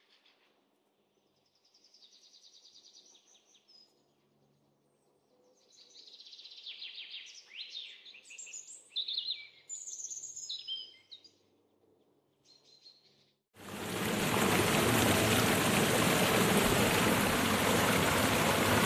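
Small birds chirping and calling in short phrases. About thirteen seconds in, a loud, steady rushing of running water cuts in suddenly and drowns them out.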